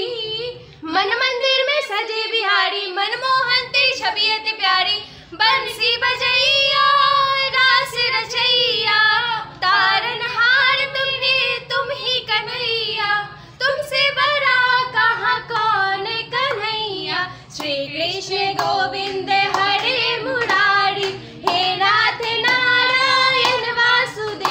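Young women singing a Hindu devotional song (bhajan) together, a held, melodic group chant with claps now and then.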